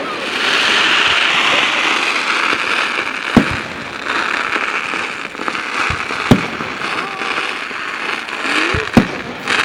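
Fireworks going off: continuous crackling from crackle-effect shells, with three sharp bangs roughly three seconds apart and a few whistling glides.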